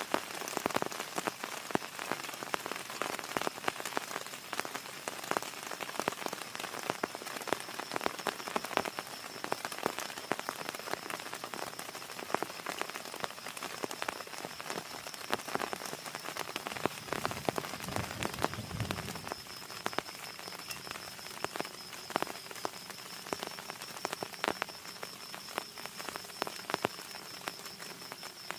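Heavy rain falling, with many individual drops tapping sharply on a surface. A steady high-pitched thin tone runs underneath, and there is a brief low rumble about two-thirds of the way through.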